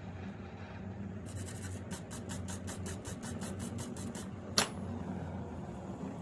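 An even run of short scratchy ticks, about five or six a second for some three seconds, then a single sharp click, over a steady low hum.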